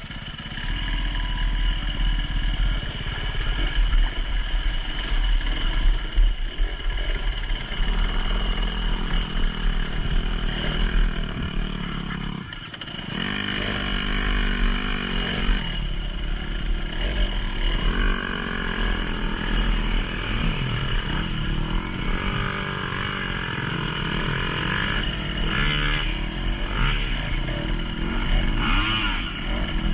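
A motor vehicle's engine running throughout, its pitch rising and falling again and again as it is revved, with a brief drop in level about halfway through.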